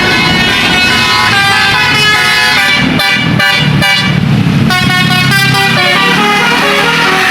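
Tour bus 'telolet' (basuri) multi-tone horn playing a quick tune of changing notes, with the bus's engine running underneath as it passes.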